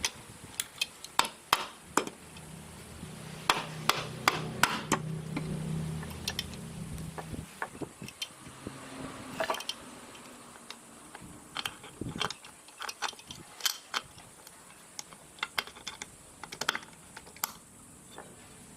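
Irregular clinking and tapping of metal engine parts and hand tools being handled, with a low hum for a few seconds near the start.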